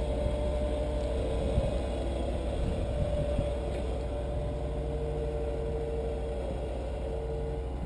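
Off-road vehicle engine idling steadily with a low rumble, the rig held still on the rocks between the spotter's directions.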